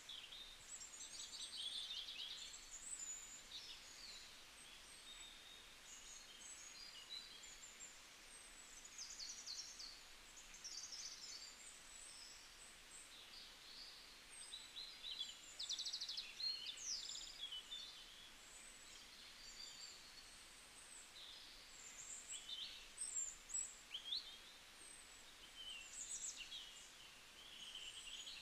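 Small birds chirping and twittering quietly, many short overlapping calls and trills, over a faint steady hiss.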